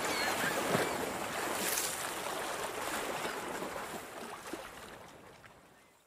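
Lakeshore ambience of water lapping and washing, a steady noise that gradually fades out to silence near the end.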